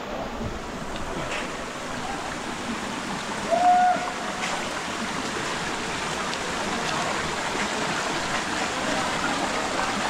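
Mountain river rushing steadily, growing a little louder. A brief whistle-like call cuts in just before four seconds.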